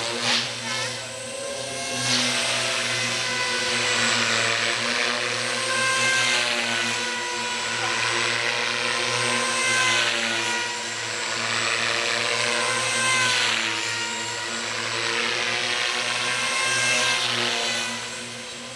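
JR Forza 450 electric RC helicopter flying hard 3D manoeuvres. Its motor and rotor whine glides up and down in pitch, with a swell of rotor noise every few seconds as the blades load up.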